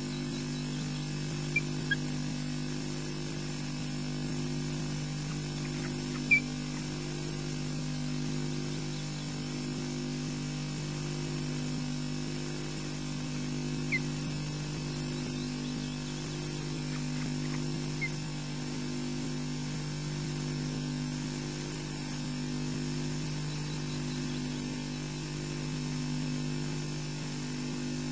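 Steady mains hum with a thin high whine from the nest camera's microphone, over which an osprey gives a handful of short, high chirps, the loudest about six seconds in.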